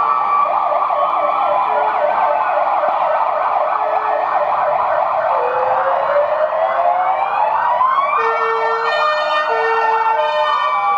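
Several ambulance sirens sounding at once, slow rising-and-falling wails overlapping a fast yelp; from about eight seconds in, an alternating two-tone siren joins them.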